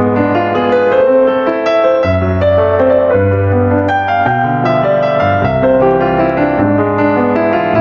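Piano music: a melody played over slow bass notes that change about once a second.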